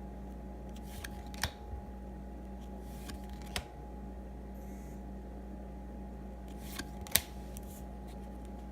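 Trading cards being handled: three sharp clicks and a few brief rustles of card stock, over a steady hum.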